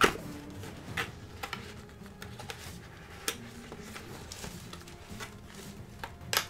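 A small cardboard box being opened by hand, fingers picking and peeling at its tape: a string of sharp clicks and crackles, the loudest right at the start and near the end.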